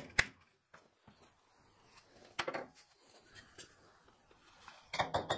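Sharp metal clinks and knocks from steel being handled at a bench vise, where a hand-made flat-bar twisting tool sits on a length of freshly twisted rebar. Two loud clinks come at the start, a short scraping sound about halfway, and a quick run of knocks near the end.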